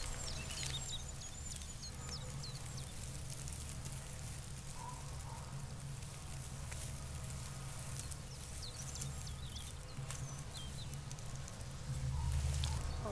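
Outdoor farmyard ambience: small birds chirping in quick series of short high calls at the start and again about nine seconds in, over faint rustling and ticking and a steady low rumble that swells near the end.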